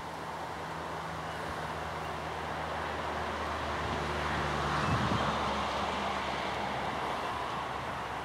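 Diesel engines of heavy earthmoving machinery at a sand pit, an excavator loading a dump truck, running as a steady low drone. The drone swells louder with a rushing noise around the middle.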